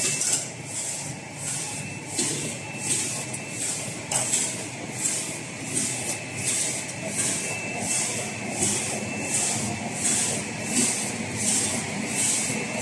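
Paper cup printing machine running, cycling with an even rhythmic hiss about one and a half times a second over a steady mechanical rumble, with a thin high whine that comes and goes.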